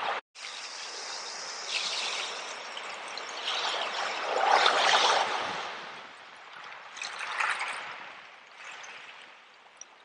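Small ocean waves breaking and washing up over a beach of shells and shell gravel, a continuous wash of water. It is loudest as a wave rushes in about halfway through, swells again briefly later, then eases off. There is a brief dropout right at the start.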